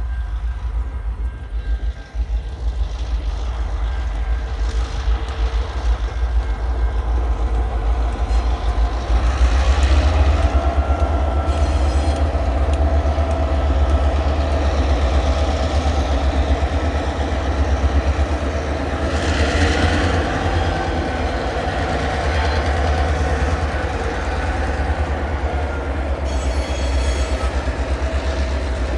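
Coal train led by TasRail diesel-electric locomotives passing slowly round a curve, with a steady low engine rumble throughout. A steady tone joins in from about nine seconds in.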